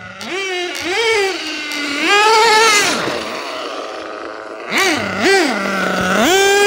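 Losi 8IGHT-T 1/8-scale nitro truggy's glow engine revving up and down as it drives: quick throttle blips, a longer rise to a high note about two seconds in, two more blips about five seconds in, dropping briefly to idle before revving up again near the end.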